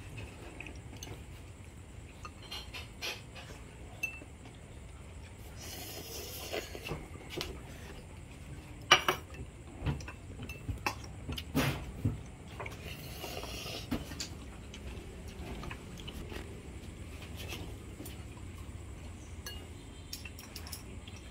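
Spoons and chopsticks clinking and scraping against ceramic soup bowls as people eat, in scattered clinks with the sharpest about nine seconds in and a quick run of them a little after.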